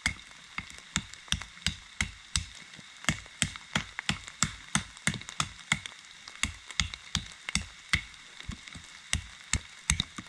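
ESEE Laser Strike survival knife chopping into the trunk of a wet madrone sapling about two inches thick: a quick, steady run of chopping strikes, about two to three a second.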